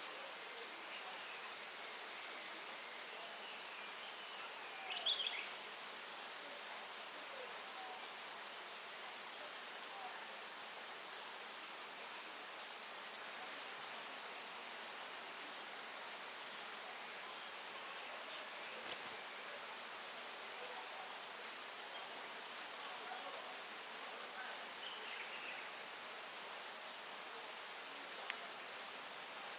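Insects trilling steadily in an even pulsing rhythm over a soft hiss, with a few short bird chirps, the loudest about five seconds in.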